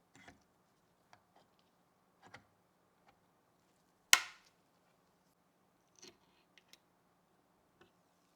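Scattered light clicks and taps of computer parts being handled, with one loud sharp click about four seconds in.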